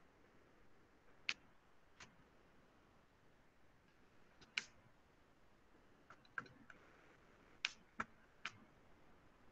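Near silence broken by about eight scattered light clicks from a computer input device as handwriting is entered on screen, several close together near the end.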